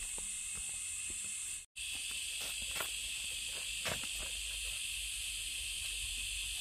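Steady high-pitched chorus of insects buzzing, with a few faint clicks and rustles. The sound cuts out for an instant just under two seconds in, then resumes slightly stronger.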